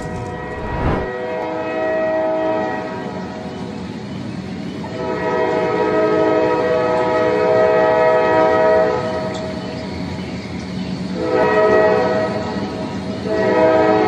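Diesel locomotive air horn sounding a chord of several tones in separate blasts: a long blast, a second long blast, a short one, then another long one. That long-long-short-long pattern is the grade-crossing signal. A low train rumble runs underneath.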